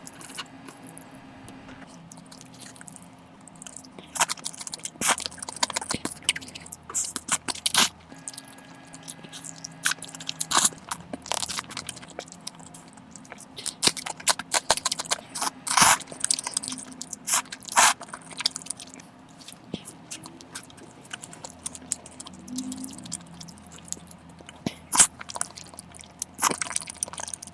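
Close-miked mukbang eating sounds: a mouth chewing noodles, with irregular sharp, wet crunches and smacks.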